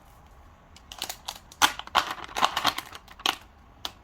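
Utensils clicking and tapping against dishes in a quick, irregular run, starting about a second in.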